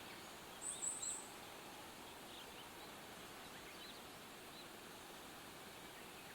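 Small birds chirping against a faint steady background: a quick run of three high, thin notes about a second in, then scattered faint chirps.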